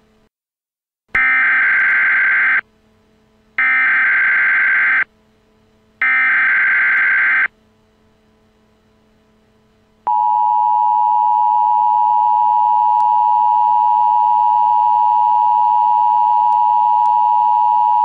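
Emergency Alert System tones: three short data bursts of the SAME header, about a second and a half each with a second's gap between, then from about ten seconds in the steady two-tone attention signal.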